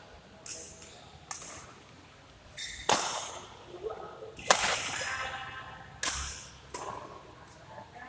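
Badminton rackets hitting a shuttlecock in a rally, about six sharp hits at uneven intervals, each echoing through the hall; the loudest is about four and a half seconds in.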